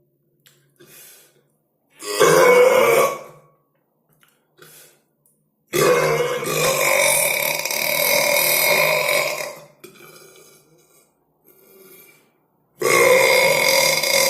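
A person burping loudly three times: a short burp about two seconds in, a long drawn-out burp of about four seconds in the middle, and another starting near the end.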